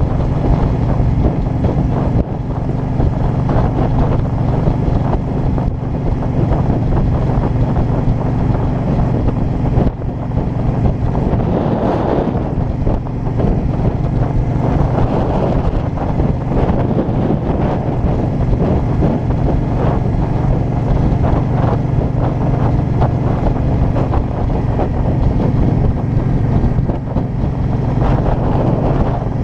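A 2005 Suzuki Boulevard C50's 805 cc V-twin engine running steadily while riding at cruising speed. Heavy wind noise buffets the microphone of the helmet-mounted action camera in its open-backed housing.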